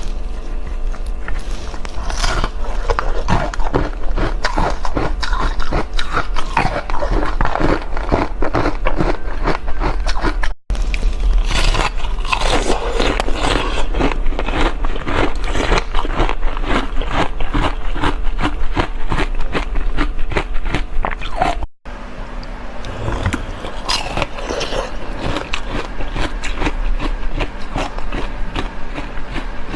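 Close-miked crunching and chewing of shaved ice: a dense, rapid run of loud crunches, broken twice by a split-second gap where the recording cuts.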